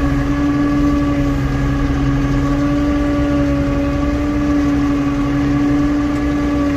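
Tractor engine running steadily, heard from inside the closed cab, with a steady droning tone over a low rumble.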